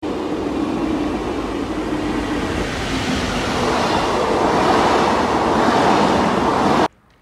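Double-deck passenger train with an electric locomotive passing close by at speed, wheels running on the rails in a steady rush that grows louder as the locomotive nears, then cuts off suddenly near the end.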